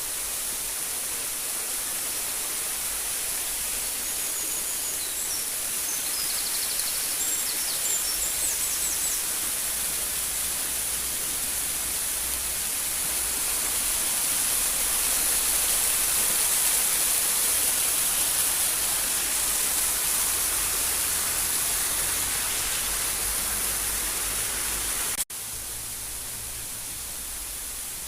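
Waterfall rushing steadily, with a few faint bird chirps a few seconds in. Near the end the sound cuts out for an instant and comes back a little quieter.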